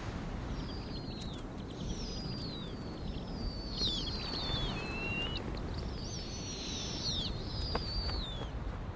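Snowy owl owlets begging while the adult is among them: a string of thin, high squealing calls, each sliding downward in pitch, several overlapping. Under them runs a steady low rush of wind.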